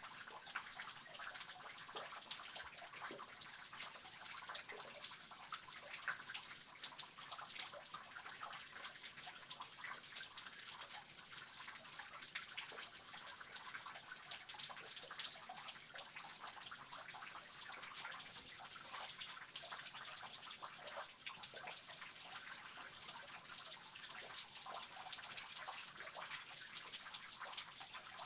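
Water dripping and trickling inside a cave: many small drops falling at irregular intervals over a steady wash of running water.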